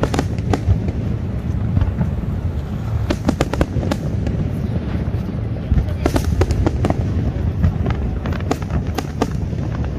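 Aerial fireworks display: a continuous low rumble of shell bursts with sharp cracks and pops, bunched in quick clusters about a third of the way in, just past the middle and near the end.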